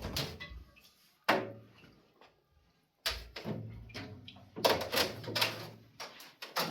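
Knocks and clatter of things being handled: a sharp knock about a second in, a brief hush, then a run of bumps and clicks in the last few seconds.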